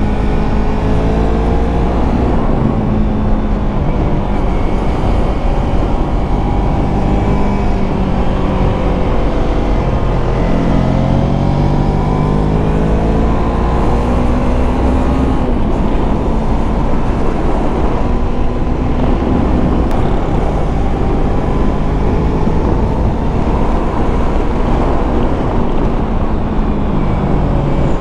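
2024 Yamaha MT-25's 250 cc parallel-twin engine under way, the revs rising and falling through a run of corners. About ten seconds in, the revs drop off and then climb steeply again.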